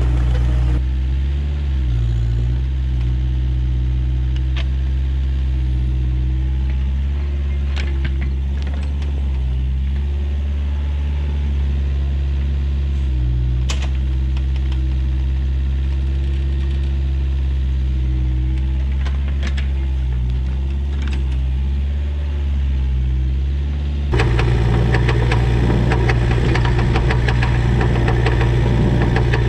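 Excavator's diesel engine running steadily during digging, with a few sharp clanks from the machine at work. About three quarters of the way through, the engine sound jumps suddenly louder and harsher.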